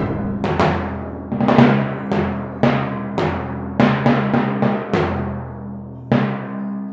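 Orchestral timpani struck in a run of about a dozen sharp strokes at uneven spacing, with several in quick succession around the middle, each left to ring and fade. The timpani are standing for the hunters' gunshots.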